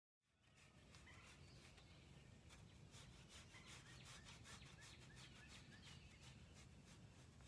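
Faint scratching of a long-handled stiff brush rubbed back and forth over a horse's coat, in repeated strokes. A bird chirps a quick series of short notes in the middle.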